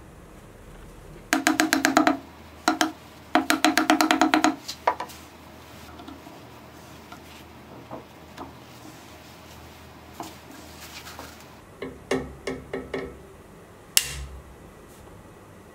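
Quick runs of hard, ringing taps against a hollow turned wooden vessel, about eight a second, coming in two bursts in the first five seconds and a shorter run about twelve seconds in, then one sharp single knock near the end. These are a small hammer and metal scraper knocking at a crack while resin is packed into it.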